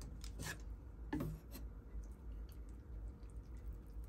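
Chopsticks pushing a block of boiled pasta into a pan of cream sauce: two soft scrapes in the first second and a half, then a few faint light ticks.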